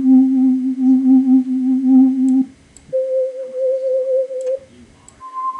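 Default FL Studio 8 BeepMap synth preset playing three held notes with a wavering pitch, each about an octave above the last: a low note for about two and a half seconds, a higher one for about a second and a half, and a third, higher still, starting near the end.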